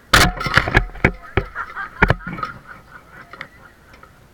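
A quick run of loud, sharp impacts close by, about half a dozen in the first two and a half seconds, the first and loudest just after the start, over voices calling out at a baseball game.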